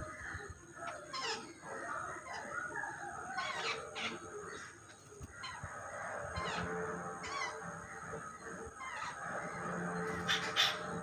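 A flock of birds calling over one another as they are fed, a busy run of short overlapping calls with scattered brief clicks.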